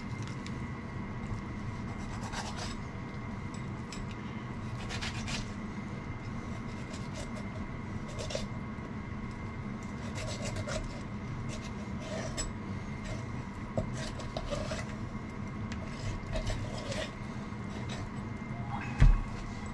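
Irregular scraping and rubbing strokes of a knife working on a large softshell turtle's body and shell, over a steady hum. One loud thump near the end.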